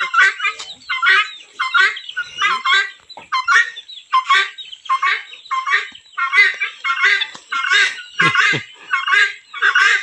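Domestic fowl calling in a steady series of short, repeated notes, about two a second.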